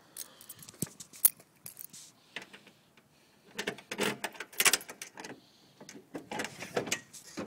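Keys jangling and clicking in the lock of a crossover truck toolbox, with a sharp click about a second in and bursts of metallic rattling in the middle and near the end, as the locked box is being unlocked.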